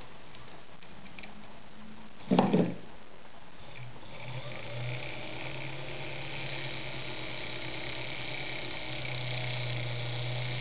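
Adler Matic 153A sewing machine winding a bobbin: a brief loud clatter a little over two seconds in, then the machine's electric motor starts about four seconds in and runs steadily with a quiet hum, driving the bobbin winder.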